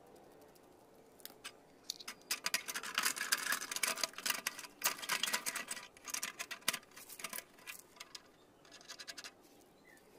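Rapid, irregular clicking and scratching of small hard parts being worked by hand. The sound is densest in the middle of the stretch and thins to a few short clicks near the end.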